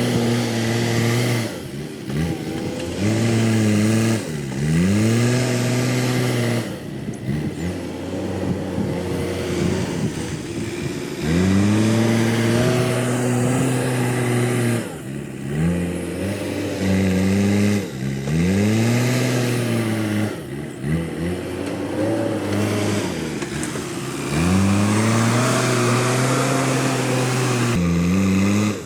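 Backhoe loader's diesel engine working under load, its speed repeatedly revving up and dropping back every few seconds as the machine digs and pushes soil.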